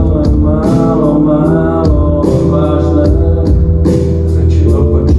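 Live rock band playing: a male voice singing over sustained keyboard chords and bass, with drums keeping a steady beat.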